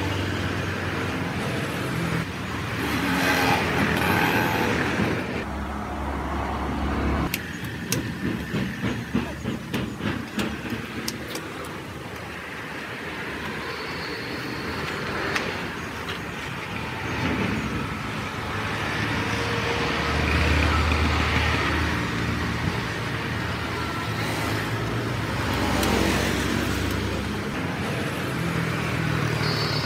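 Road traffic passing steadily close by. About seven seconds in comes a run of quick, sharp chops, roughly three a second, from a knife cutting into a king coconut.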